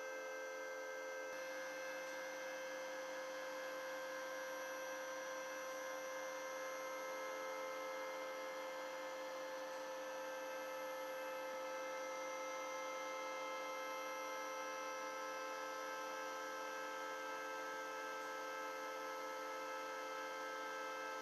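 Steady machinery hum from a building heating system's plant, made of several fixed tones that hold level throughout. The mix of tones shifts slightly about a second in.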